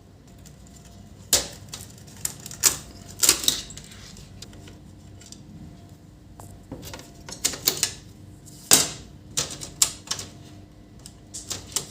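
Irregular sharp plastic clicks and clacks from hands taking apart an HP LaserJet P2035 printer's casing, loudest near the end.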